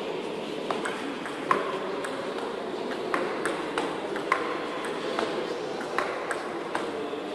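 Table tennis ball clicking off rubber paddles and the table in a rally: light, sharp hits at an uneven pace, roughly every half second, over a steady hall murmur.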